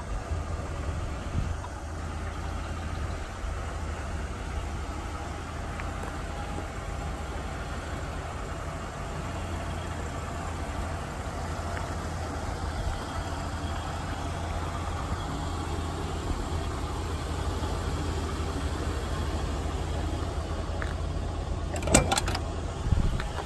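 1986 Ford F-150's 5.0-litre V8 idling steadily. Near the end, a few sharp clicks as the driver's door is handled and opened.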